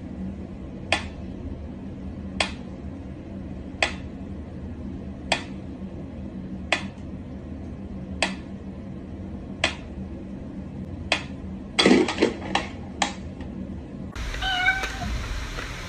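Mechanical pyramid metronome ticking slowly and evenly, one sharp tick about every second and a half, over a low steady hum. About twelve seconds in, a short run of louder, quicker knocks breaks the beat.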